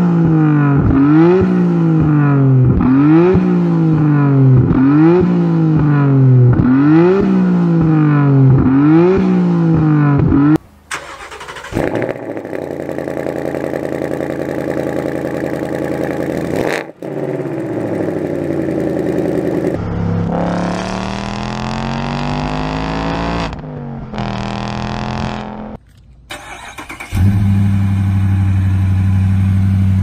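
Nissan Skyline GT-R R34's RB26DETT twin-turbo straight-six revved again and again, about once a second, the pitch snapping up and falling back each time. Then a Ford Mustang Bullitt's 5.0 Coyote V8 runs and is revved, its pitch rising in steps. Near the end a Dodge Challenger's 392 Hemi V8 idles steadily.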